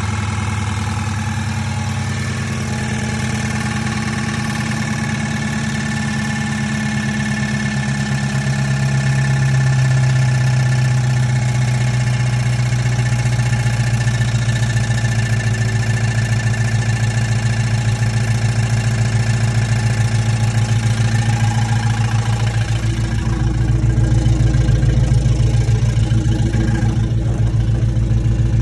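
Dodge Charger's 5.7-litre Hemi V8 running at idle with a rhythmic abnormal noise whose cause the owner cannot place: a failing lifter, a pulley, an exhaust leak or a cracked flex plate. About 23 seconds in, the note gets deeper and a little louder.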